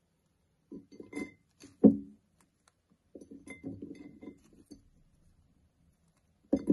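A few light clinks and knocks of glass or dishes being handled on a table. The loudest comes about two seconds in and another near the end, with a busier run of small clatters in between.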